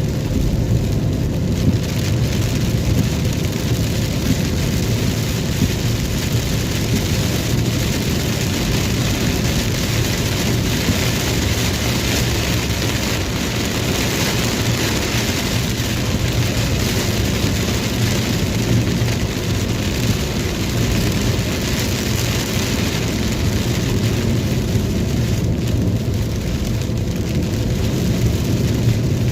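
Steady rain, with a continuous low vehicle rumble underneath.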